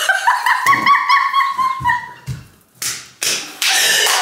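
A high, drawn-out vocal sound held for about two seconds and falling slightly at the end, over a few soft thumps; then two short hissing breaths.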